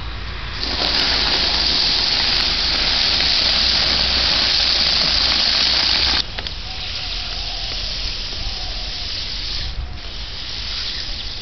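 Loose vermiculite granules pouring from a sack onto a sealed charcoal kiln as its insulating cover: a loud, even hiss that starts about half a second in and cuts off suddenly about six seconds in. A quieter rustling hiss follows as the granules are spread by hand.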